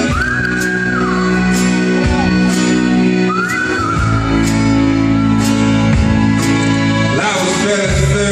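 Live band playing an instrumental break: a held lead line with bending notes over bass and drums, with a steady cymbal beat.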